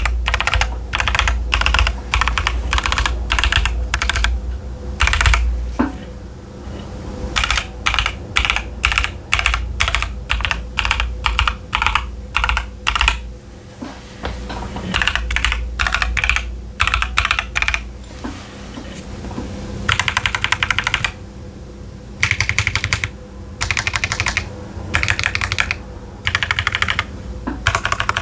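Typing on a Keychron Q10 mechanical keyboard with TTC Chaotic Panda tactile switches and Cherry-profile dye-sub PBT keycaps: runs of rapid keystrokes in bursts with short pauses between.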